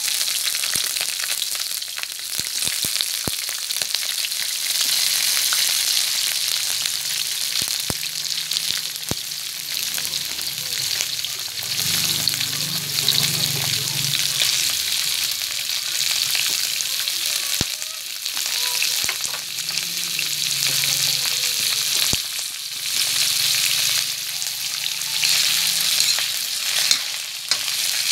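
Garlic sizzling in butter in a hot wok, a steady frying hiss, with whole raw shrimp added about halfway through and stirred. A spatula scrapes and clicks against the metal now and then.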